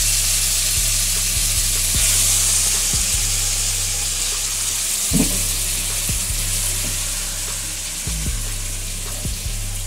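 Marinated chicken gizzards and onions sizzling in hot mustard oil in an aluminium kadai, a steady frying hiss. A few short knocks of utensil or pan are heard, the loudest about five seconds in.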